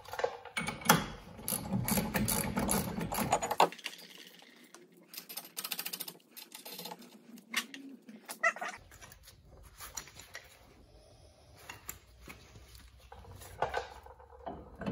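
Clicks and clinks of metal brake parts being handled and fitted onto a car's front hub: a two-piece slotted brake rotor going onto the wheel studs, then the brake caliper being offered up to it. The clicks are irregular and busiest in the first few seconds.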